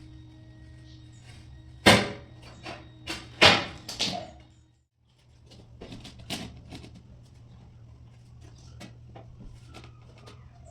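Three loud, sharp knocks in the first half, then a run of lighter clicks and taps over a steady low hum, with a brief drop to silence about halfway through.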